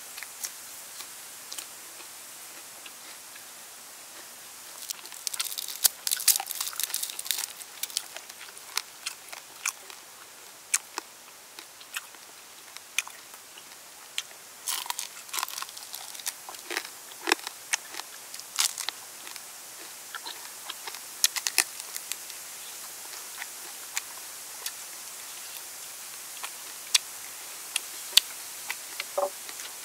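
Close-up crunching and chewing of crispy deep-fried water snake: sharp crackling bites in clusters, thickest about five to seven seconds in and again around fifteen seconds, with scattered single crunches in between.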